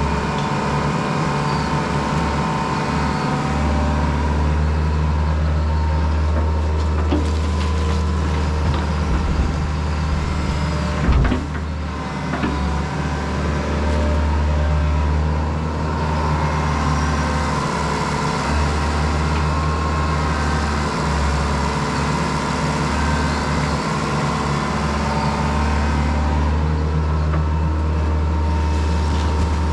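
Diesel engine of heavy earthmoving equipment running steadily under load, with a single clank about eleven seconds in.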